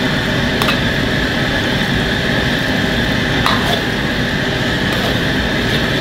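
Gas wok burner running with a steady rushing noise under a wok of bubbling sauce. A metal ladle knocks against the wok about twice.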